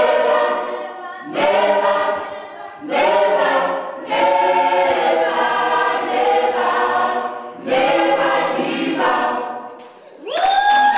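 A choir of voices singing unaccompanied in short phrases, each followed by a brief pause. Near the end a rising whoop breaks in and clapping starts.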